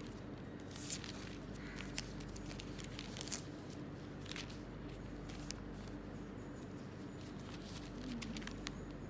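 Quiet room tone with a steady low electrical hum and scattered faint clicks and rustles.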